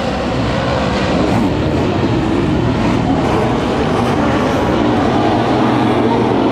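Engines of several motocross sidecar outfits racing on a dirt track, their engines blending into one loud, continuous sound.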